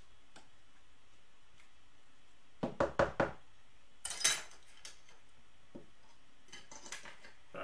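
Rigid plastic card holders clacking against each other and the table as they are handled: a quick run of four sharp clacks, then a short scraping rattle, with a few light taps near the end.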